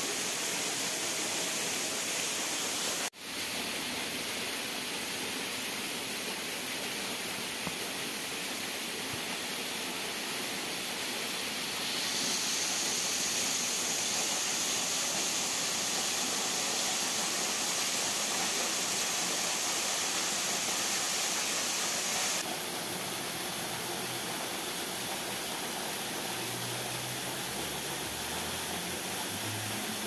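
Steady rush of a small waterfall and stream, an even hiss of falling water. It briefly drops out about three seconds in, and its tone shifts abruptly near twelve and twenty-two seconds.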